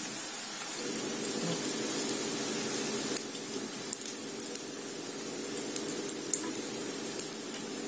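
Zucchini fritters sizzling in hot oil in a frying pan, a steady hiss, with a few light clicks of a fork against the pan.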